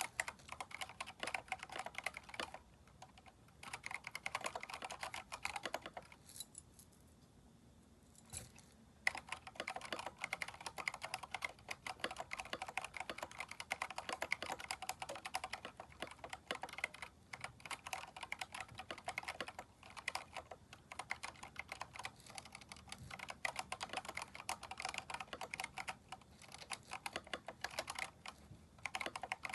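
Fast typing on a Keychron K4 mechanical keyboard fitted with aftermarket keycaps: a dense patter of key clacks. It breaks off briefly about three seconds in, and again for about three seconds near the middle, before running on steadily.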